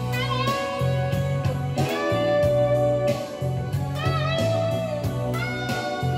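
Electric guitar, a Stratocaster-style solid-body, playing a blues-style lead in B minor over a backing track. Single notes are bent and shaken with vibrato, with one long bent note held about four seconds in, above a repeating low bass figure and a steady beat.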